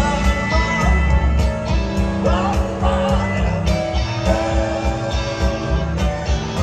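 Live rock band playing: electric guitar, piano and keyboards, bass and drums, with some notes gliding in pitch a couple of seconds in.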